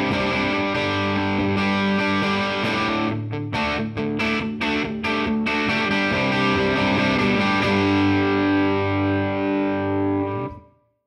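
Electric guitar, a Les Paul Custom, played through a Mesa/Boogie TransAtlantic tube amp in channel 2's tweed mode: overdriven chords, with a run of short choppy stabs in the middle, ringing out and stopping shortly before the end.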